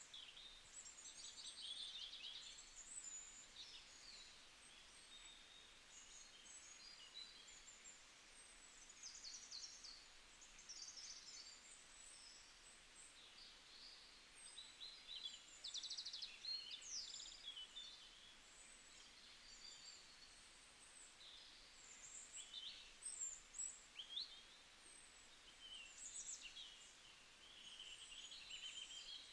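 Faint chirping and twittering of small birds: many short, high calls and quick trills, some overlapping, over a quiet background hiss.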